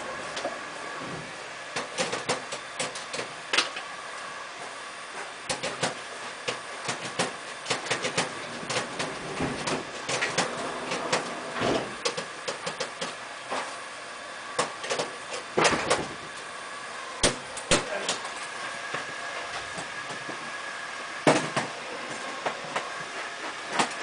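Irregular clicks, taps and knocks of an installer's hand tools and fittings being worked at an air conditioner's outdoor unit, a sharper knock about 21 seconds in, over a faint steady hum.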